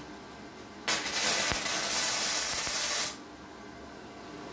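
Self-shielded flux-core wire welding arc from a Redbo MIG-120 welder, burning for about two seconds as a short tack weld. It starts about a second in and cuts off abruptly.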